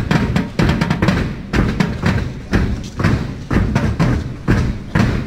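Drums playing a steady, loud beat, about two heavy low strokes a second with lighter strokes in between.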